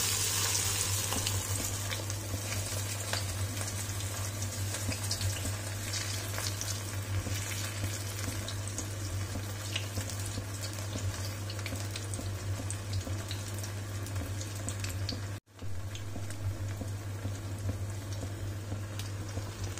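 Banana-flower and chana dal vadai frying in hot oil in an iron kadai: a steady sizzle with many small crackles, broken off for a moment about fifteen seconds in.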